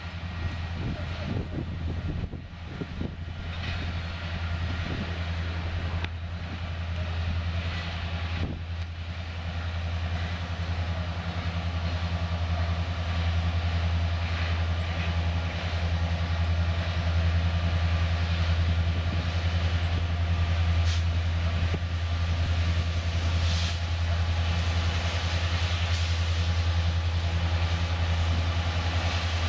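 Diesel freight locomotives running, a steady low engine drone that grows gradually louder, with a couple of sharp clicks in the first several seconds.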